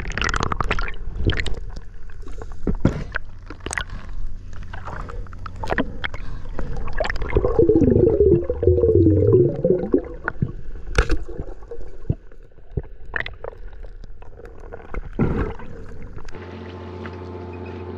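Underwater water gurgling and sloshing with scattered sharp clicks and knocks, and a wavering whine that rises and falls for about two seconds near the middle. About sixteen seconds in, it cuts suddenly to the steady hum of a boat's engine above water.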